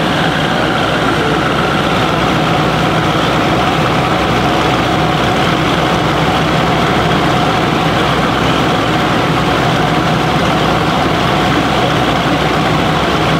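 Audi RS6 C8's twin-turbo 4.0-litre V8 running steadily on a chassis dyno, loud and even with no revving.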